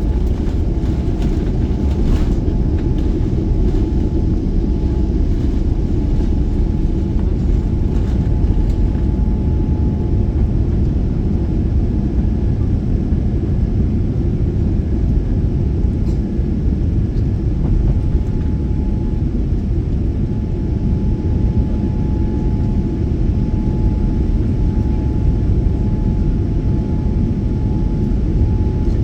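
Airliner cabin noise during takeoff and climb: a loud, steady rumble of engines and rushing air, with a faint steady hum above it.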